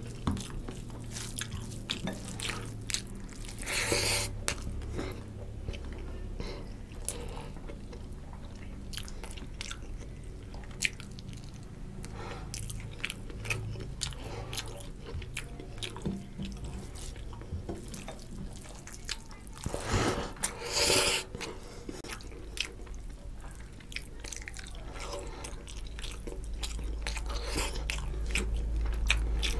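Close-up eating sounds of rice and rohu fish curry eaten by hand: wet chewing and lip-smacking with many small clicks, and fingers squishing rice into the gravy. Two longer, louder noisy sounds come about four seconds in and about two-thirds through, over a low steady hum that grows toward the end.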